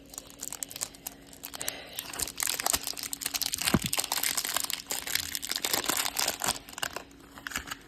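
A brand-new MGC 2x2 speed cube being turned quickly by hand for the first time: a fast, dense run of small plastic clicks and clacks from the layers snapping past each other. The turning is 'sandy' and gritty, as a new, unbroken-in cube is.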